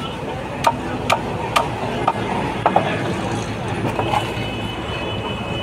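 Sharp clicks and cracks, about six in three seconds, as fish flesh and bone are sliced against a fixed bonti blade.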